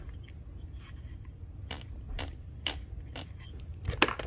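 Scattered light clicks and taps of small metal engine parts being handled on a workbench, a few in the second half and the sharpest near the end, over a low steady hum.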